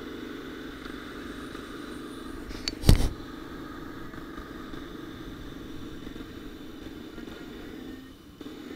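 Motorcycle running along a dirt road, picked up by a camera on the bike: a steady engine and road noise, with one sharp knock about three seconds in.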